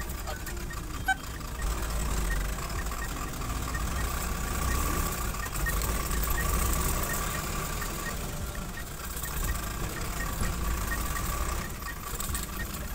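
A bus engine running with road rumble, heard from inside the cabin of the moving bus, with a faint regular ticking about two to three times a second.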